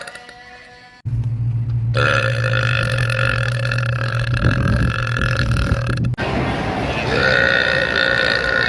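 A woman's long, low belch held steady for about five seconds, starting and stopping abruptly about one and six seconds in.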